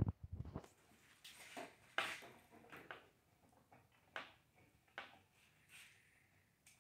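Faint scattered clicks and knocks, about one a second, as a metal LED light bar is handled and set against its roof-mounting brackets.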